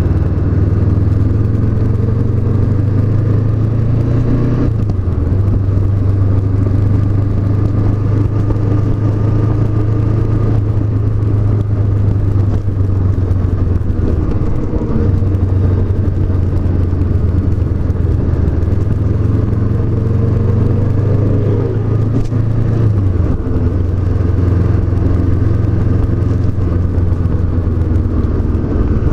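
Honda CB500X's 471 cc parallel-twin engine running steadily under way, heard from on the bike. The engine note dips briefly about five seconds in and again around twenty-three seconds in.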